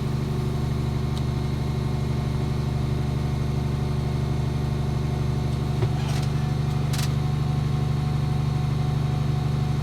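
Tractor engine idling steadily at low revs, with two faint clicks about six and seven seconds in, as the PTO is switched on but fails to engage.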